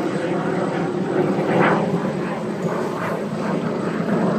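Aero L-29 Delfin jet trainer's turbojet engine running steadily as the aircraft flies its display.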